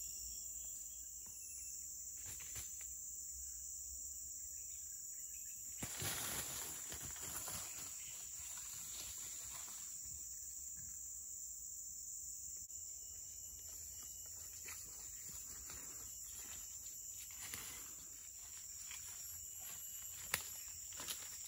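A steady, high-pitched drone of rainforest insects throughout, with rustling footsteps through leaf litter and undergrowth about six seconds in, and again now and then, with a few sharper snaps near the end.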